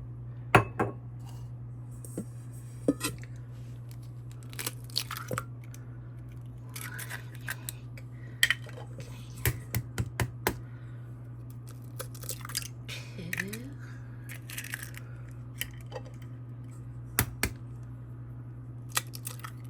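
Kitchen prep at a counter: scattered sharp knocks and clinks of a mixing bowl and utensils being handled, over a steady low hum.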